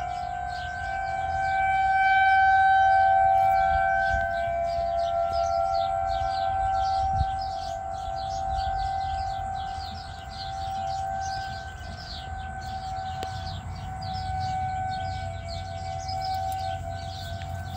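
Federal Signal 2001-SRNB outdoor warning siren sounding a steady tone for a severe thunderstorm warning. Its loudness swells and fades as the rotating head sweeps past, loudest a couple of seconds in.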